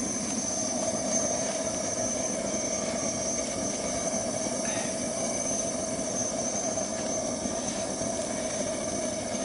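Homemade waste oil burner firing into a barrel furnace, its flame making a steady, even rushing noise with no breaks.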